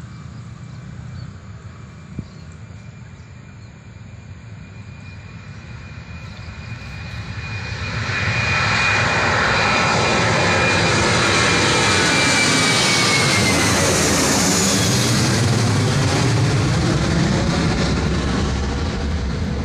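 Boeing 737-800 jet airliner's CFM56 turbofan engines at takeoff thrust, building from a distant rumble to a loud roar as it comes close. A high engine whine drops in pitch as the aircraft passes, and the noise eases slightly near the end.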